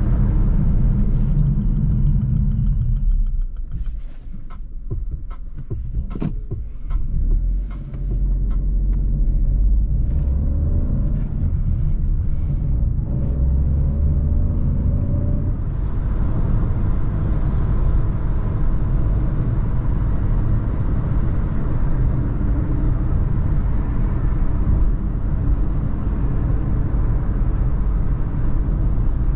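Jeep Avenger's 1.2-litre turbo petrol three-cylinder engine and road rumble while driving. It goes quieter for a few seconds with several sharp clicks and knocks, then the engine note rises as the car accelerates and settles into a steady drone.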